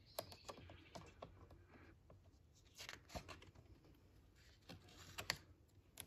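Faint paper rustling and soft taps as a page of a hardcover picture book is turned and the book is handled, in a few short clusters of rustle and click.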